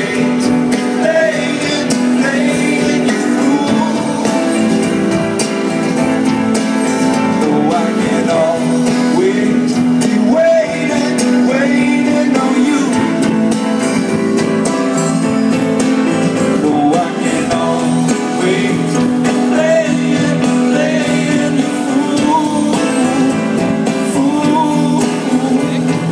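Live band music over a festival PA, heard from within the crowd: acoustic guitar and piano carry a passage of the song with some singing over it.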